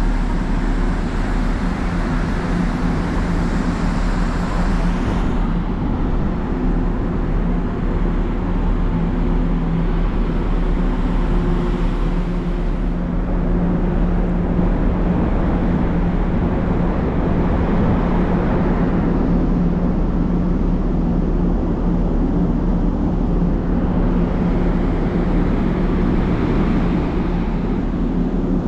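Steady drone of a large car ferry's onboard machinery on the open deck, a low hum holding several steady tones with a rushing hiss on top. The hiss loses its upper part about five seconds in.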